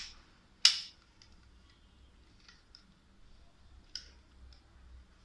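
Sharp mechanical clicks from an electric door lock being triggered to unlock: two loud clicks right at the start, less than a second apart, and a fainter click about four seconds in.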